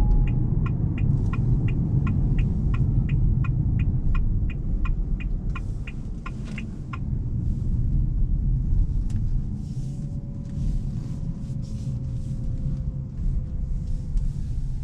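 Low road and tyre rumble inside the cabin of a 2023 Ora Good Cat electric car, with the turn-signal indicator ticking about three times a second until it stops about seven seconds in. A faint whine falls slowly in pitch near the end.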